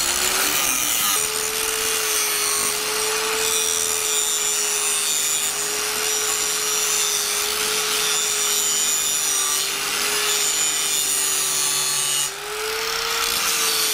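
Electric angle grinder with a grinding disc chamfering the edge of a thick steel plate: a steady motor whine under the hiss of the disc biting into the metal. Near the end the grinder eases off the steel for a moment and the whine rises slightly before it bites again.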